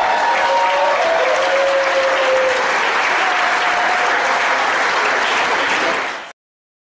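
Audience applauding, with a few voices calling out over the clapping early on; it cuts off suddenly near the end.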